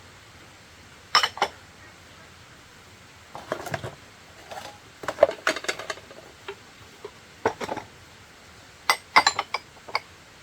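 Hard household items being handled, clinking and knocking at irregular moments, with a quick run of sharper knocks near the end.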